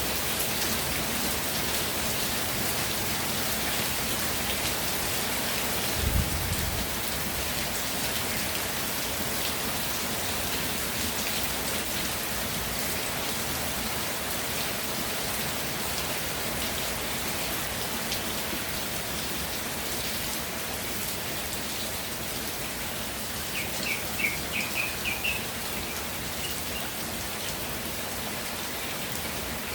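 Steady rainfall, a dense even patter of raindrops. A single low thump comes about six seconds in, and near the end there is a quick run of about six short high chirps.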